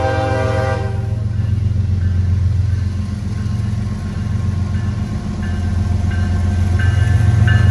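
A diesel locomotive's air horn ends about a second in, leaving the loud, steady low rumble of diesel freight locomotives running. Brief high-pitched tones come and go near the end.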